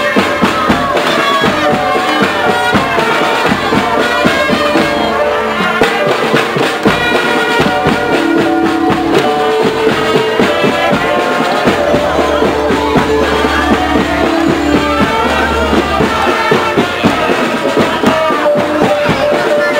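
Loud music with a busy drum beat under held melody notes.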